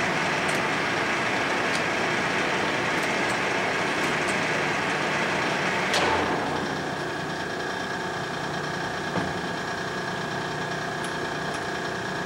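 Clausing Colchester Mascot 1600 engine lathe's headstock running its spindle at 370 RPM with a steady gear noise. About six seconds in, a sharp clunk as the spindle control lever is thrown; the spindle stops and a quieter steady hum carries on.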